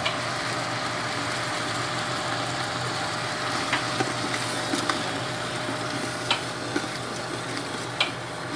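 Chopped onions and jalapeños sizzling steadily in hot oil in a stainless steel stockpot as the fresh vegetables give off their water, with a few short clicks.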